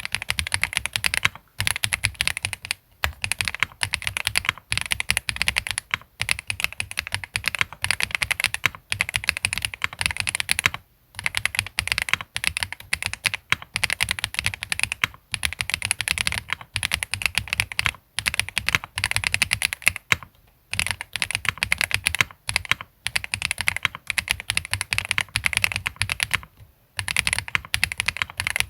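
Continuous fast typing on a Tiger 80 Lite custom mechanical keyboard with SWK Mocha switches, PC plate, PBT keycaps and foam-dampened case: dense runs of keystrokes broken by brief pauses every few seconds.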